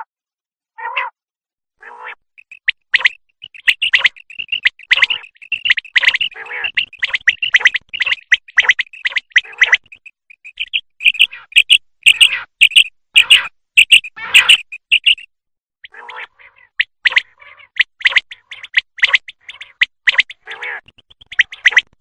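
Common quail calling: rapid runs of short, high chirping notes, broken by brief pauses about ten and fifteen seconds in.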